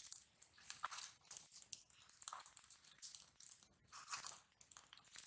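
Faint, irregular crunching and rustling handling noises with scattered crackles, as a cook reaches among steel plates of ingredients on dry leaf-strewn ground.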